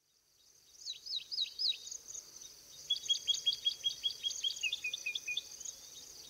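Wild birds singing, fading in about half a second in: first a few quick hooked whistles, then a rapid string of short notes and a short falling run, over a steady high insect buzz.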